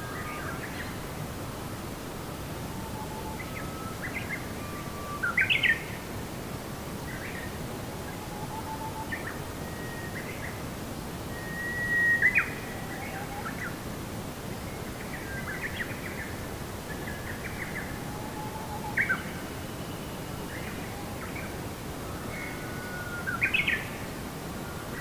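Birds chirping and calling in short, varied phrases, a few louder ones standing out, over a steady background hiss.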